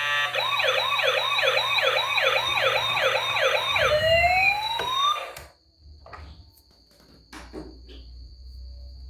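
Toy police car's electronic siren, a fast rising-and-falling wail repeating about two to three times a second. It ends in a final glide and cuts off suddenly about five seconds in, followed by a few faint knocks.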